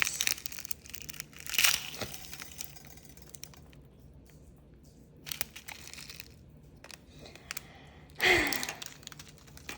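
Small plastic packet crinkling and tearing in a few short bursts, with a louder burst near the end, as the bead topping packet is opened.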